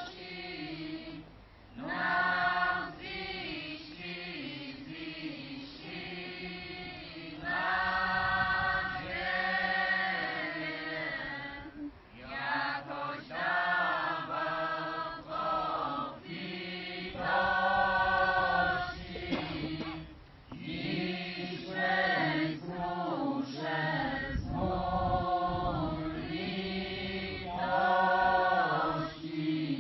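A choir chanting a slow melody in held phrases of one to three seconds, with short breaks between them and lower voices sustaining notes underneath.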